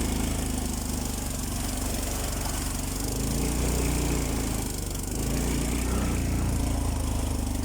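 Small motorcycle engine running, its revs rising and falling about halfway through, over a steady hiss of rushing floodwater.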